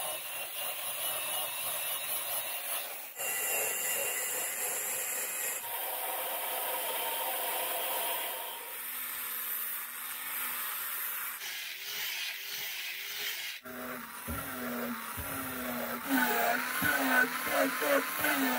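Angle grinder working the steel of an old file, first with a cutting disc and then with an abrasive disc, in several short takes joined by abrupt cuts. In the last few seconds the motor's pitch wavers up and down and the grinding grows louder.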